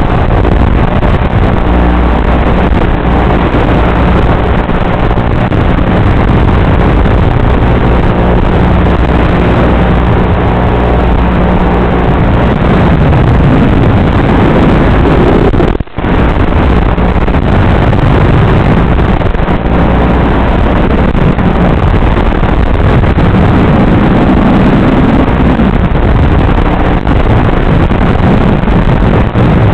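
Small FPV racing quadcopter's brushless motors and propellers buzzing loudly, recorded on board, their pitch swinging up and down in places as the throttle changes. The sound drops out for an instant about halfway through.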